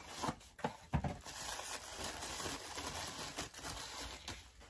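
Small cardboard box being opened and handled: a few taps and knocks in the first second, the loudest about a second in, then a steady quiet rustle of cardboard and packaging.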